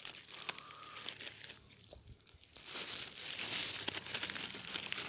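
Crinkling and crackling of a food wrapper being handled and opened by hand, a rapid run of small clicks that eases off briefly about two seconds in and then grows louder.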